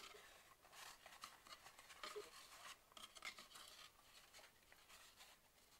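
Faint, irregular rustling and rubbing of folded mixed-media paper pages, glued to a board cover, as they are handled and opened out in their concertina folds.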